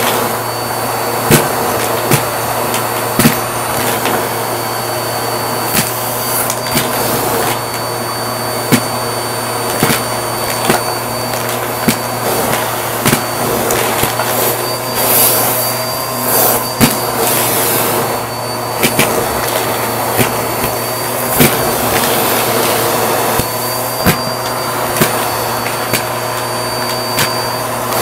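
Bissell vacuum running steadily through its hose and crevice tool, with a low hum and a thin high whine, while coins are sucked up the hose in irregular sharp clacks and rattles.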